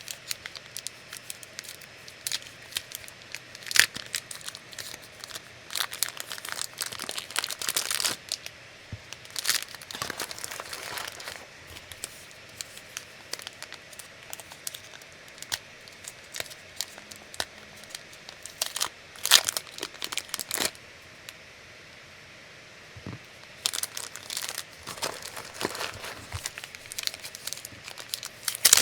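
Product packaging being unwrapped by hand: irregular crinkling and tearing, with scattered sharp handling clicks. The handling pauses twice for a few seconds.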